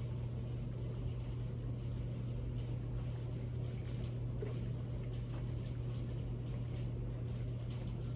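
A steady low hum runs throughout, with faint small clicks and mouth sounds of people eating.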